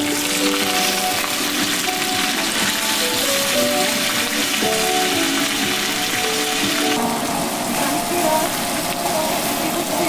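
Pork belly, king oyster mushrooms and kimchi sizzling steadily on a hot griddle pan, with background music of held, slowly changing notes.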